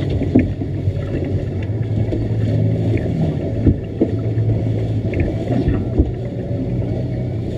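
Boat engine running steadily at low speed, with water rushing and splashing at the stern. A few short, sharp knocks stand out over it.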